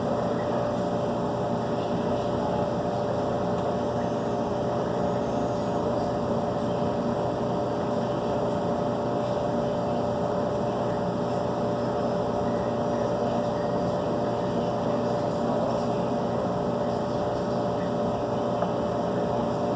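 A steady machine hum with a few fixed tones, unchanging throughout.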